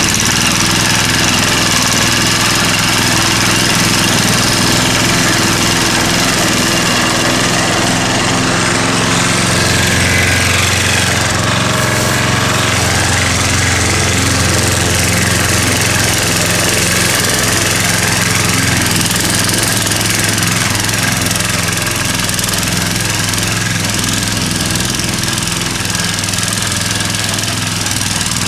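Pull-start petrol lawn mower engine running steadily close up while cutting grass, its note shifting briefly about ten seconds in.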